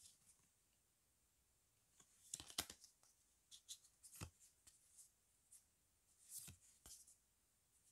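A stack of photocards being flipped through by hand, each card sliding off the front of the stack with a short papery rustle or flick. The sounds come in scattered clusters with quiet gaps between, the loudest a little over two seconds in.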